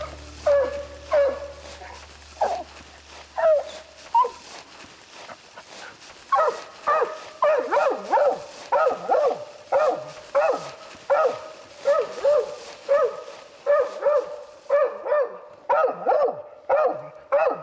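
Coon hound barking treed, her 'tree bark', the sign that she has a raccoon up the tree. The barks come a few at a time at first, then from about six seconds in settle into a steady chop of about two a second, a bark every breath.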